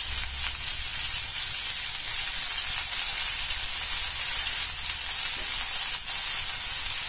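Hot coconut oil with tempered mustard seeds sizzling in a steel pan under freshly added shredded red cabbage, a steady hiss of frying.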